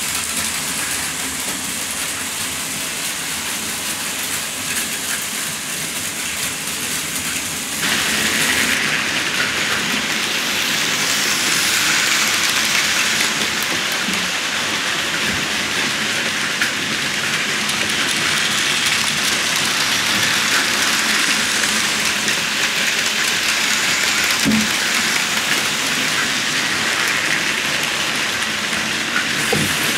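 Battery-powered Plarail toy trains running on plastic track: a steady whirring, rattling noise of their small motors and wheels. It gets louder and brighter at a cut about eight seconds in.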